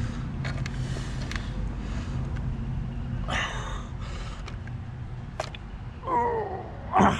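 Faint clicks and a short rustle from hands working a threaded pipe fitting on a garden tap, over a steady low hum, with a brief grunt or breath near the end.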